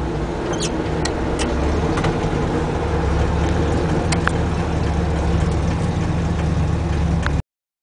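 Chevrolet 283 small-block V8 with a four-barrel Edelbrock carburetor running steadily as the 1962 C10 pickup cruises at low speed, heard from inside the cab. A few faint clicks sit over the engine, and the sound cuts off suddenly near the end.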